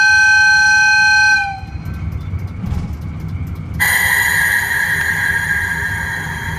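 DD13 diesel locomotive's horn sounding one long blast that stops about a second and a half in, its pitch sagging as it dies, heard from the cab over the low rumble of the diesel engine. About four seconds in, a loud hissing rush starts suddenly and carries on over the engine.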